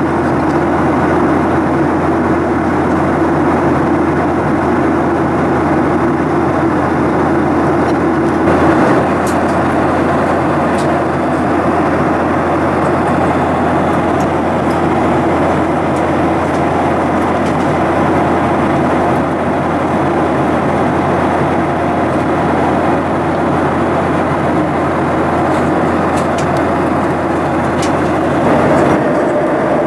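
Steady cabin noise of a Boeing 737-800 in flight at altitude, heard inside the cabin from a window seat: the drone of its CFM56-7B turbofan engines mixed with the rush of air along the fuselage.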